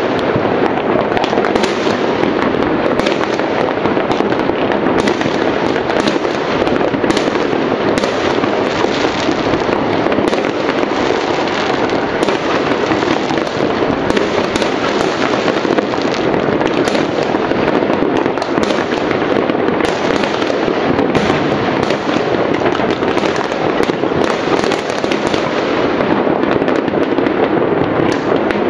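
Many New Year fireworks and firecrackers going off at once across a wide area. They make a steady, dense din of distant bursts, with frequent sharper individual bangs and crackles over it.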